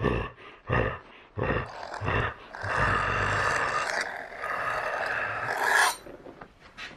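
Werewolf growls: several short snarling growls, then one long roar lasting about three seconds that cuts off sharply near the end.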